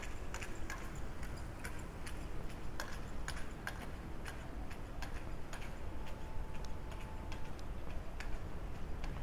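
Footsteps on hard pavement: sharp, crisp clicks at a walking pace, thinning out later, over a steady low hum of the town's background.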